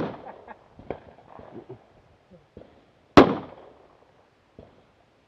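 Rifle shots from a competitor firing a stage: two loud shots about three seconds apart, each trailing off in echo, with a few fainter cracks between them.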